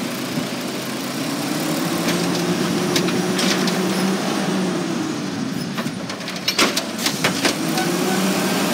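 Natural-gas automated side-loader garbage truck running its lift arm: the engine and hydraulics whine, rising then falling in pitch as the arm raises a wheeled trash cart and tips it into the hopper. A few sharp knocks come about two-thirds of the way in, and the pitch starts rising again near the end as the cart is lowered.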